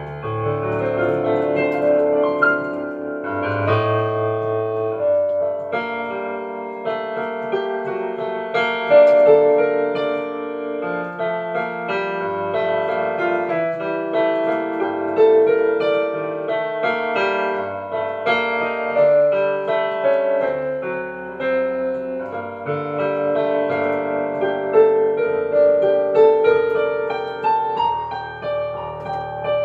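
Solo piano played with both hands: chords held over changing bass notes, with a slow melody moving above them.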